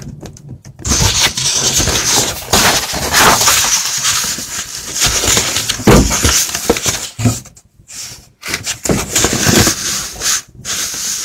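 Rustling, scraping handling noise full of small crackles, in fits and starts, dropping out briefly about two-thirds of the way through.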